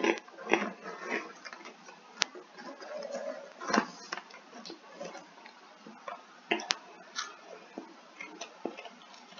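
Someone eating puffed snacks close to the microphone: irregular crisp crunches and clicks of chewing and handling.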